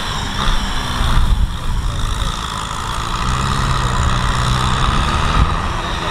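Kubota M6040SU tractor's diesel engine running steadily as the tractor drives through deep mud.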